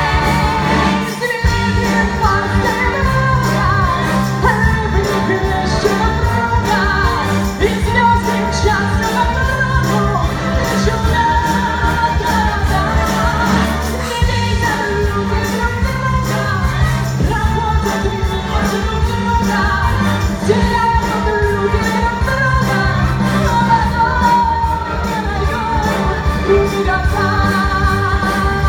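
Live pop band music with a steady drum beat, sustained bass notes and a melodic lead line.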